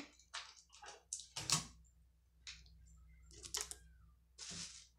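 Unpacking noises from a new microwave: clear plastic wrap crinkling and packing tape being pulled off the door and control panel, in a handful of short scratchy bursts. The loudest comes about one and a half seconds in, and a longer tearing hiss comes near the end.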